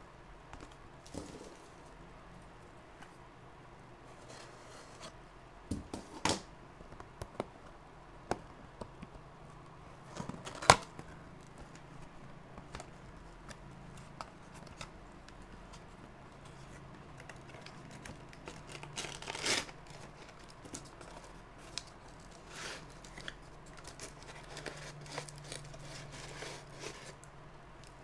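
Cardboard packaging box being handled and opened by hand: scattered scrapes, taps and crinkling rustles of cardboard and plastic wrap, with a sharp click about ten seconds in.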